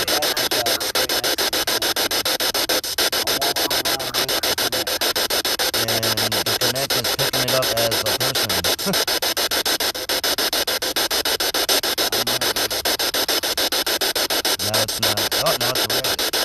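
Spirit box sweeping rapidly through radio stations: a loud hiss of static chopped several times a second, with short low voice-like snatches breaking through now and then.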